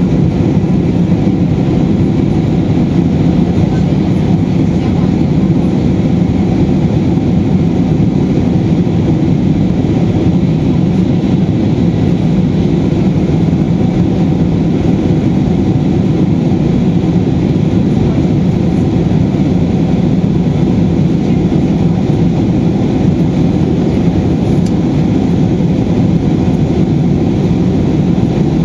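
Steady, loud cabin roar of an Airbus A320's jet engines and rushing airflow, heard from inside the passenger cabin in flight.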